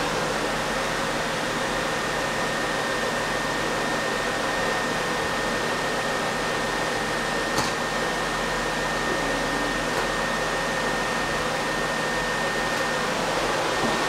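Canister vacuum cleaner running steadily: an even rush of motor and air noise with a thin, steady high whine. Two faint ticks come partway through.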